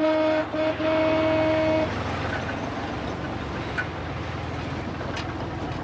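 A low-pitched horn gives two short toots and then one longer blast that stops about two seconds in. A steady low rumble, like a vehicle engine running, carries on under and after it.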